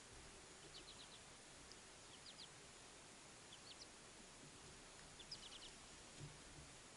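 Faint bird chirps: short clusters of three or four quick high notes, repeated every second or so over a low steady hiss.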